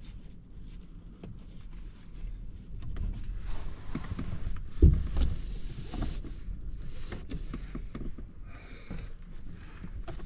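Handling noises inside a pickup camper shell: knocks, clicks and rustling as a person shifts on the bed and works at the shell's window, with one heavy thump about five seconds in.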